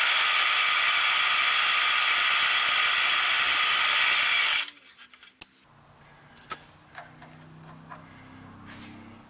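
Compressed-air blow gun hissing steadily for about four and a half seconds as it blasts chips out of a freshly drilled hole in a steel plate, then cutting off suddenly. A few light clicks follow.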